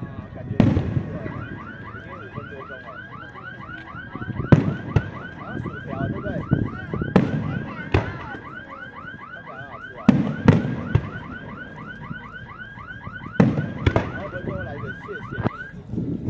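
Aerial fireworks shells bursting with loud bangs every few seconds. Behind them, from about a second in until just before the end, a car alarm sounds a rapid repeating chirp, about four a second.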